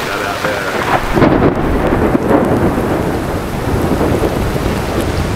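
Tropical squall: heavy rain pouring down and strong wind gusting across the boat, the gusts buffeting the microphone with a low rumble that builds about a second in.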